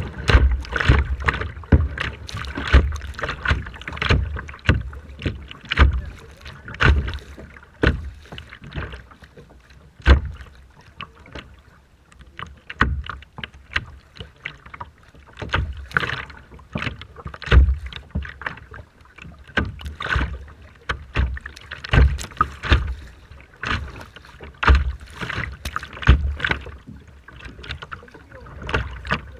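Rough, choppy water splashing and slapping close by in quick, irregular strikes, with gusts of strong wind buffeting the microphone in low rumbles.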